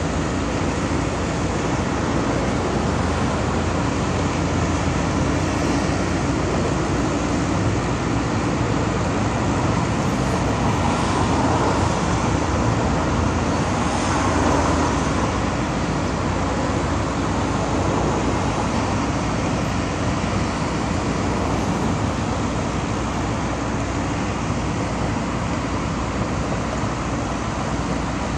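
Steady road traffic noise from a busy highway, swelling a little louder around the middle.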